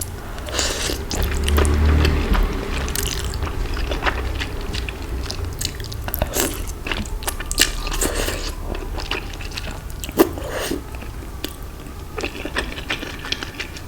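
Close-miked chewing and biting, with irregular crisp crunches and wet mouth clicks.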